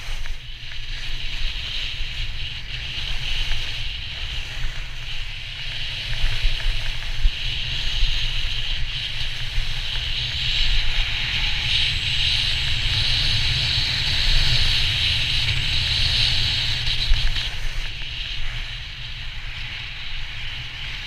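Wind buffeting a GoPro HERO4's microphone while riding downhill on snow, heard as a low flickering rumble. Under it runs a steady hiss of edges sliding over groomed snow, which swells in the middle and eases near the end.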